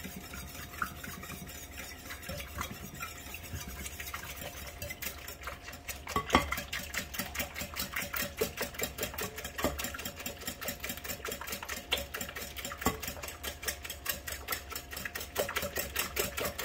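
Wire whisk beating eggs and milk in a bowl: a quick, even clicking of the whisk against the bowl, which becomes faster and steadier about five seconds in, with a few louder clacks.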